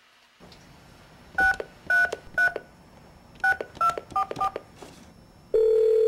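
Touch-tone telephone being dialled: seven short two-note keypad beeps, three and then four. Near the end the steady ringback tone starts as the call rings through.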